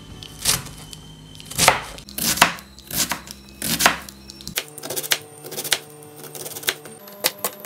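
Chef's knife chopping an onion on a plastic cutting board: a handful of separate cuts, then quicker, lighter chopping from about halfway through as the onion is diced fine.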